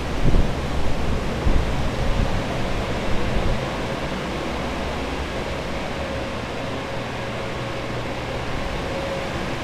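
Water-damage drying equipment, several air movers and dehumidifiers, running together: a loud steady rush of fan noise with a faint steady hum. Low bumps and thumps over the first three seconds or so.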